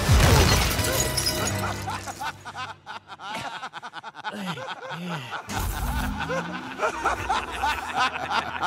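A loud shattering crash, then a crowd of men's voices laughing and chuckling over background music.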